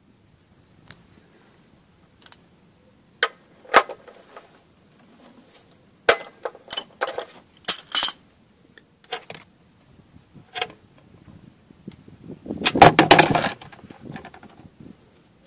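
Sharp metallic clinks and knocks of a spanner on a VW T4 diesel's sump drain plug, with a plastic drain pan being set underneath. Near the end comes a longer, louder clatter as the drain plug comes out and the old engine oil starts to run.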